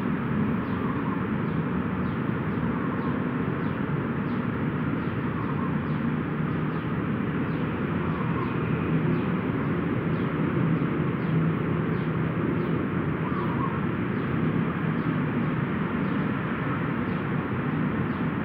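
Steady outdoor background noise, with a faint high chirp repeating about twice a second.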